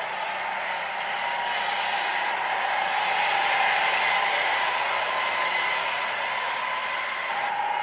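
Go-karts running on a track: a steady engine whine over a hiss of noise, its pitch drifting slightly up and down.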